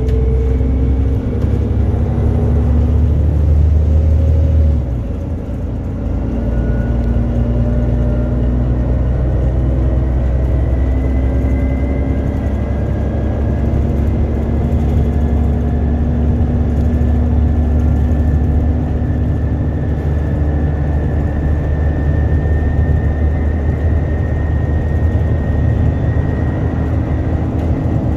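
Alexander Dennis Enviro400 double-decker bus on a Dennis Trident chassis, heard from the upper deck while under way. The engine drones steadily, and its level drops briefly about five seconds in before it picks up again. A faint high whine rises slowly in pitch through the rest of the run.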